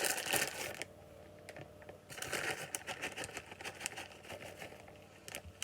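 Light rustling and rapid small clicks as shredded pepper jack cheese is sprinkled by hand over a casserole, busiest from about two seconds in.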